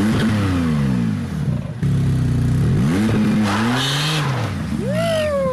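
Porsche 911 Turbo's twin-turbo flat-six engine revving up and down over and over, its pitch rising and falling in repeated sweeps. Near the end a single high whine swoops up and then slowly falls away.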